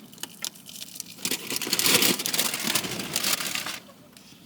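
Paper bakery bag rustling and crinkling in irregular bursts while a pastry is handled and taken out, busiest in the middle and dying away near the end.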